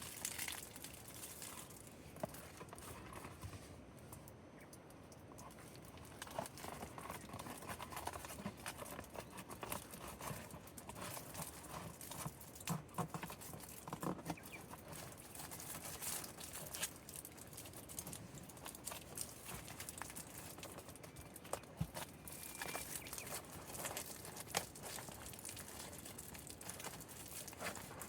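Wood campfire crackling: irregular small pops and clicks, with occasional scraping and rubbing sounds.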